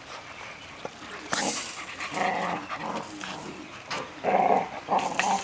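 Six-week-old golden retriever puppies growling and yipping in play, in short bursts, the loudest cluster about four seconds in.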